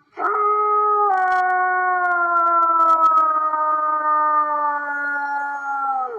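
A single long wolf-style howl, held for about six seconds with its pitch sliding slowly down, then cut off abruptly.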